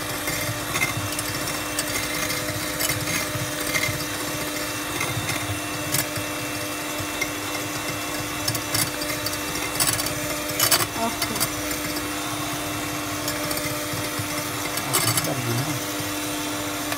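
Electric hand mixer running at a steady speed, its beaters whisking eggs in a bowl and now and then clicking against the bowl's side. This is the eggs being beaten with salt and pepper until foamy.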